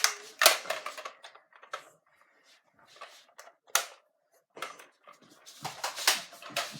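Irregular clicks, knocks and rustling from children moving about and handling things in a small room. There is a sharp knock about half a second in, a single sharp click just before four seconds in, and a busier run of clatter near the end.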